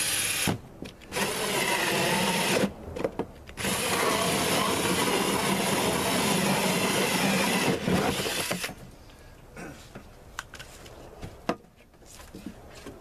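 Cordless drill with a 4-inch hole saw cutting through the plastic wall of a Brute trash can, in three runs with short pauses, the last and longest lasting about four seconds. After the cut ends, about two-thirds of the way through, there are softer knocks and rustles as the plastic can is handled.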